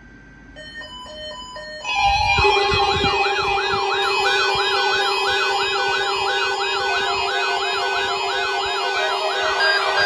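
Mock emergency-alert alarm made of layered electronic siren tones: faint stepped beeps, then about two seconds in a loud steady low tone starts under warbling wails that rise and fall about twice a second, with a few deep thumps at the onset.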